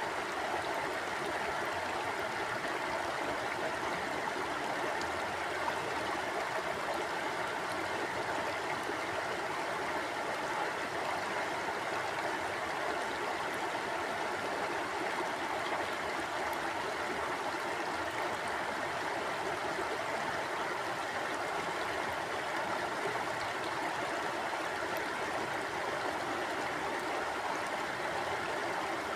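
Stream water flowing and gurgling steadily, a constant even rush of running water.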